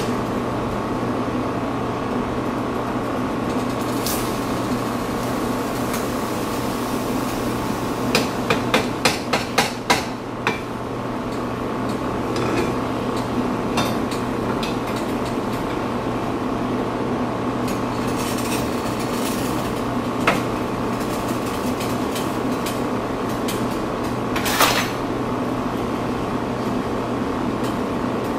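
Sharp clinks and knocks of a lid and a spoon against a saucepan of boiling chicken: a quick run of about seven knocks a third of the way in, then scattered single knocks, over a steady hum.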